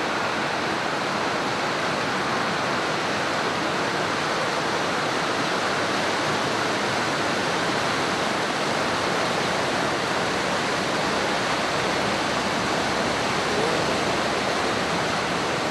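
Floodwater of the swollen Drina river rushing past in a steady, unbroken noise.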